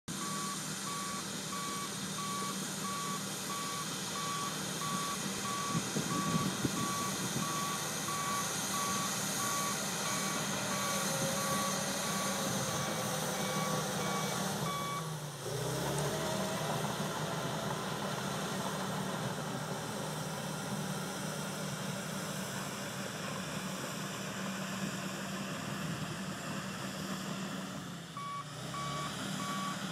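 Crawler dozer's diesel engine running steadily while its backup alarm beeps evenly as it reverses; the beeping stops about halfway through and starts again near the end.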